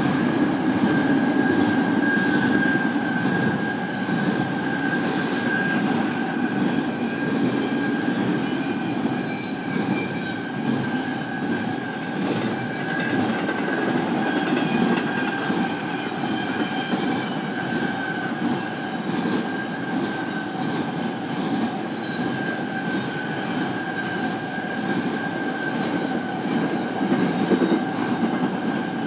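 BNSF intermodal freight train rolling past, its cars making a steady rumble with a steady high tone over it.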